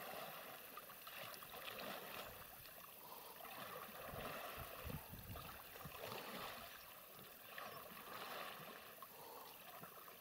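Faint splashing of oars dipping and pulling through the water as an inflatable rubber boat is rowed, swelling unevenly every couple of seconds with the strokes.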